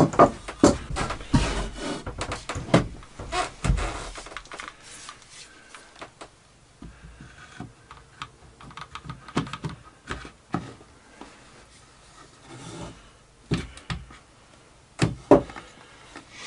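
Irregular wooden knocks, clunks and rubbing: a heavy laminated plywood motor mount is handled and set on a chipboard bench, and a circular saw's plastic motor housing is pushed into it and bumps against the wood. The knocks come thick at first, then thin out to a few single clunks.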